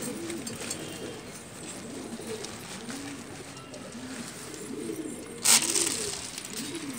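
Domestic pigeons cooing, a run of repeated low, rising-and-falling coos. A short, sharp noise about five and a half seconds in is the loudest moment.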